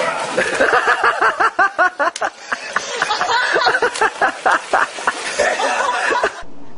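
A person laughing hard, a quick run of repeated ha-ha sounds that goes on for about six seconds and cuts off suddenly near the end.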